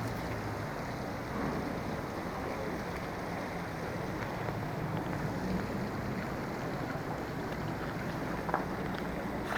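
Steady low engine rumble with wind noise on the microphone.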